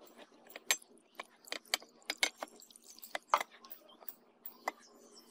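Rusty meat cleaver being rinsed by gloved hands in a clay bowl of water, with water poured over the blade from a metal cup: irregular splashes and sharp clicks and clinks, several a second.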